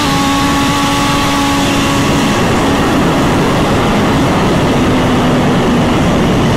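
Turbocharged Suzuki GSX-R1000 drag bike running hard down the strip: a steady engine tone for the first couple of seconds, fading under loud, even rushing noise. On this pass the bike would not shift gears properly because the air shifter had lost its air pressure.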